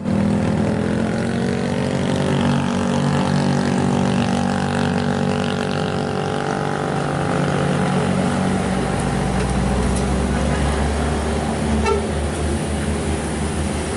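A heavy vehicle's engine running steadily on a steep climb. A deeper low rumble comes in about two-thirds of the way through.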